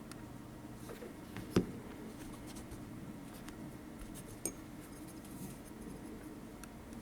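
Small parts of a disassembled folding knife being handled, giving faint ticks and taps. There is one sharp click about a second and a half in and a lighter one about four and a half seconds in.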